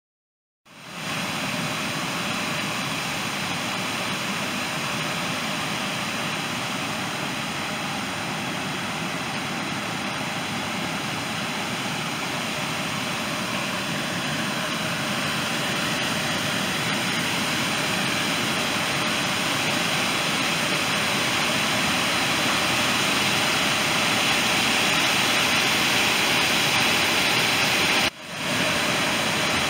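Water pouring over a low dam spillway: a steady rushing noise that starts about a second in and grows slightly louder, with a brief drop near the end.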